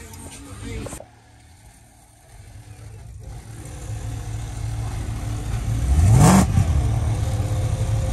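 A car engine running, revved once about six seconds in, its pitch rising sharply, then settling back to a steady run.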